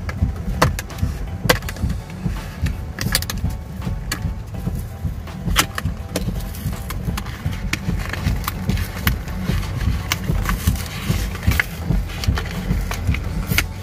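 Clear plastic blister pack being pried and crinkled open by hand, with many scattered sharp crackles and clicks, over a steady low rumble.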